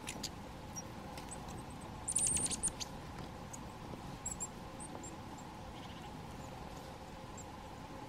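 Small forest birds at a seed feeder: a few short, thin, high calls, and about two seconds in a quick run of about seven sharp ticks.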